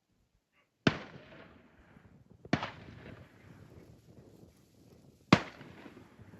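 Three gunshots from hunters' guns, each followed by a long rolling echo. The second comes about a second and a half after the first and the third about three seconds later; the third is the loudest.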